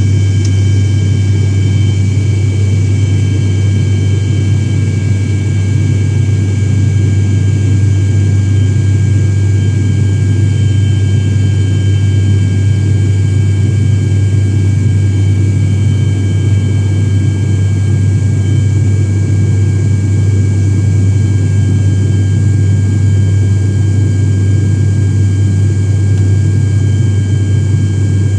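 Steady cabin drone of an airliner in flight: a loud, even low hum from the engines and propellers, with a few faint high whines held at one pitch.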